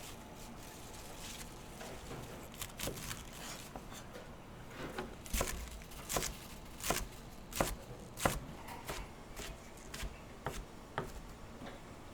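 Kitchen knife chopping on a cutting board while poke ingredients are prepared. Scattered light taps at first, then a run of louder chops about a second and a half apart in the middle, easing to lighter taps near the end.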